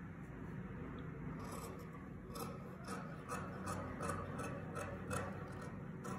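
Large tailor's shears cutting through cotton cloth: a run of short, crisp snips, about three a second from about two seconds in, with the blades rubbing across the fabric.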